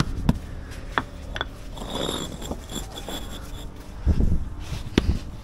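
Scraping and rubbing, with a few sharp knocks spread through it and some low thuds near the end.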